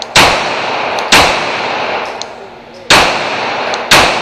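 Four 9mm pistol shots from a Glock 17 fired in an indoor range: two about a second apart, a pause of nearly two seconds, then two more. Each shot is followed by a reverberating echo off the range walls.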